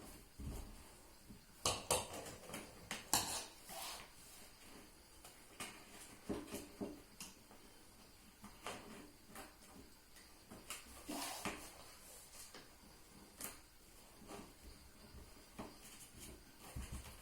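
Scattered light knocks, taps and clicks at an irregular pace, the sharpest about two and three seconds in.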